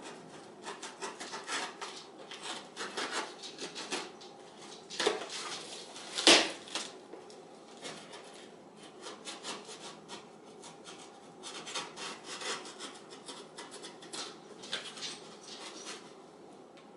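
Rustling, rubbing and scraping of a cardboard box and its packing as new stainless steel headers are handled, with a sharp knock about six seconds in.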